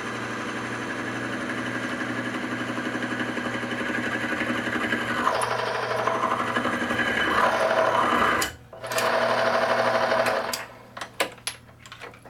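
Falex lubricant tester running, its steel bearing and race turning under load after being wiped dry of lubricant, a steady rhythmic mechanical whir that grows a little louder and does not seize. It cuts out briefly about eight and a half seconds in, runs again for two seconds, then stops, followed by sharp metallic clicks and clanks as the load arm and spring scale are handled.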